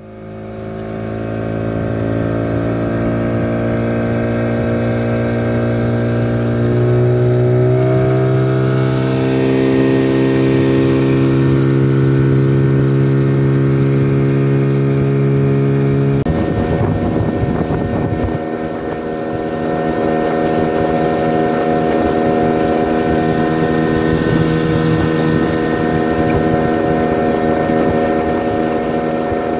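Outboard motor of a small river longboat running under way at a steady cruising speed. The engine note fades in at the start, rises slightly about a quarter of the way through, and shifts to a different steady note about halfway.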